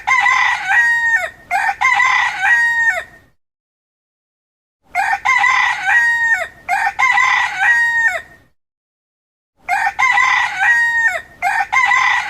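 Rooster crowing, one looped recording of the crow played six times in three pairs, with a second or more of complete silence between the pairs.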